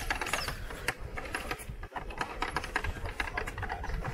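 Rapid, irregular clicking and crunching of grit and small stones being moved over.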